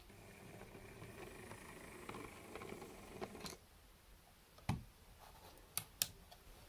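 OO gauge model locomotive running slowly along the track, its motor whirring faintly with wheels rumbling on the rails, then stopping. A sharp knock follows, then two quick clicks.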